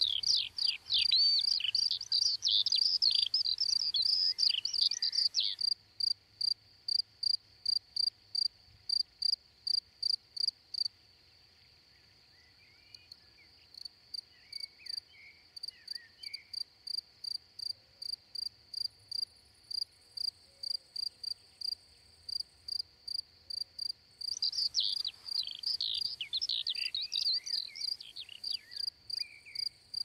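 Crickets chirping in a steady, even rhythm of short high-pitched pulses, about two or three a second. Songbirds sing warbling, gliding phrases over them for the first five seconds or so, faintly in the middle, and again for several seconds near the end, each time starting and stopping abruptly.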